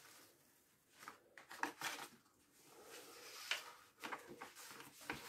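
Faint crinkling and rustling of a diamond-painting canvas's plastic cover film as it is lifted and folded back by hand, in several short bursts.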